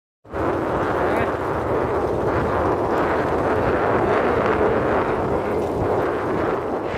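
Heavy wind buffeting on the microphone together with the rumble of a vehicle travelling fast over a rough dirt road, starting abruptly about a third of a second in and continuing loud and unbroken.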